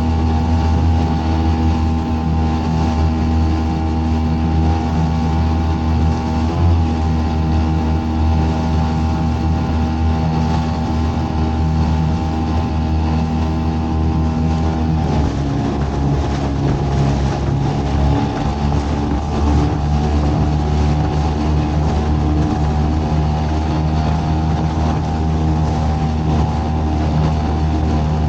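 A small boat's motor running steadily under way, with a strong low hum and a steady whine. Its tone changes about halfway through, as with a change of throttle.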